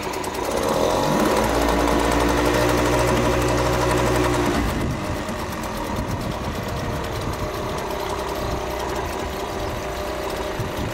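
Tohatsu 3.5 B2 two-stroke outboard motor running while it warms up after a start on choke. About a second in its speed rises and holds for a few seconds, then it drops back to a lower, steady idle.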